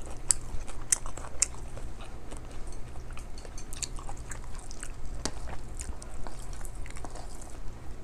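Close-miked chewing and mouth sounds of a person eating rice and mussels, with many small irregular clicks and crackles.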